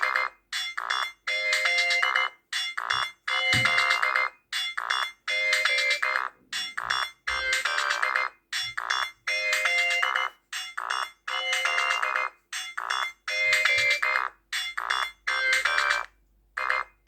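Mobile phone ringtone: a short electronic melody of quick pitched notes, played in brief phrases with short gaps and repeating over and over.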